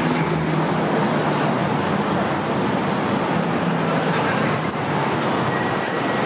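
City street traffic noise: a steady wash of road vehicles with a low engine hum underneath.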